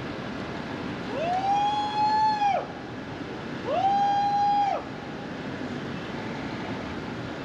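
Emergency vehicle siren giving two short wails, each rising, holding a steady pitch for about a second and then dropping away, about a second in and again near the middle, over the car's steady road noise.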